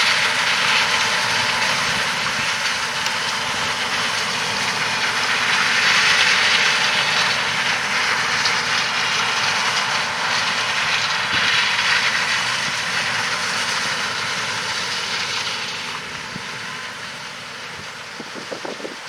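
John Deere S680 combine running steadily as it harvests corn. It fades somewhat over the last few seconds.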